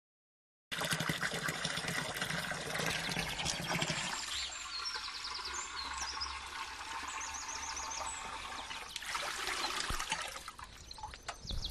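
Water trickling from a spout into a clay jug as it fills, starting after a brief silence, with a few bird chirps over it in the middle.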